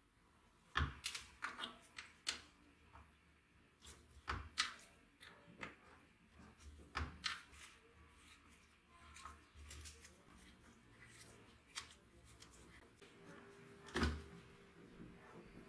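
Clicks, knocks and scrapes of a screwdriver and gloved hands on an old chainsaw's plastic top cover as it is worked loose and lifted off. Irregular sharp clicks and knocks, the loudest about a second in, around four and seven seconds, and near the end.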